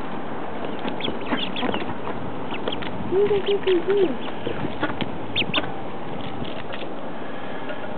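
Ancona ducklings peeping close to the microphone, with short high chirps scattered through and a run of four short, lower calls about three seconds in, over a steady hiss.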